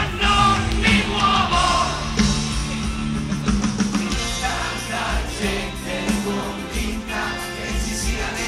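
Live rock band playing through a big outdoor PA, heard from within the audience: drums, bass and guitars, with singing over them.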